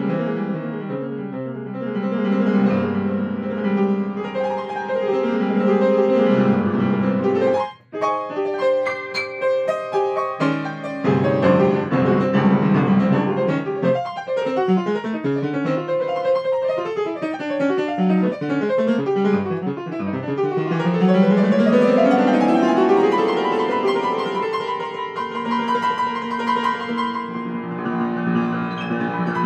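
Yamaha grand piano played in free improvisation, dense chords and runs throughout. It cuts off sharply for a moment about eight seconds in, then comes back with quick repeated notes. A fast rising run follows about two-thirds of the way through.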